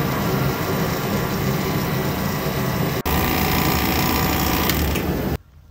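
Pittsburgh 2.5 CFM electric vacuum pump running steadily with a loud hum, pulling a vacuum on the car's air-conditioning system through manifold gauges. It stops abruptly near the end.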